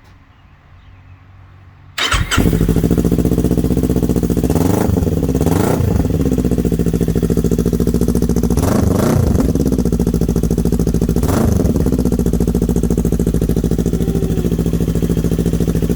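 Kawasaki Ninja 400's parallel-twin engine starting about two seconds in and idling loudly through an aftermarket slip-on muffler with its baffle removed. It is blipped in several short revs, two close together, then two more, then one, each dropping straight back to idle.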